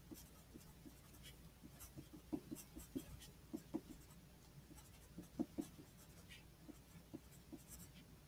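Pencil writing on paper: the lead faintly scratching and tapping in small, irregular strokes as a line of handwritten letters is formed.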